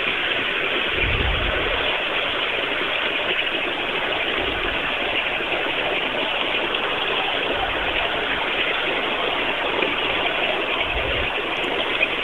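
Ride-on 5-inch gauge battery-electric locomotive running along the track: a steady, even running noise from the chain-driven loco in motion, with a few low thumps.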